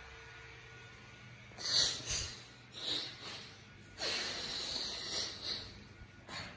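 A person breathing close to the microphone: three noisy breaths, the last and longest lasting about two seconds.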